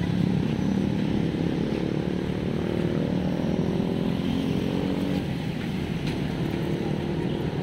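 A small engine running steadily, its pitch holding much the same throughout.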